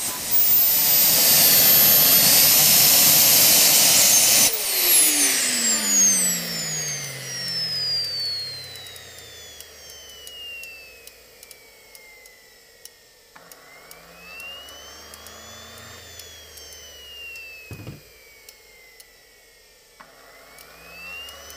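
Jet Central Falcon 100 model gas turbine running with a loud rush and high whine, then cut off about four seconds in: the whine falls steadily over several seconds as the turbine spools down. After that the starter motor spins it up and lets it coast down in slow cycles, the pitch rising and falling, as the ECU's cool-down sequence blows air through the hot engine.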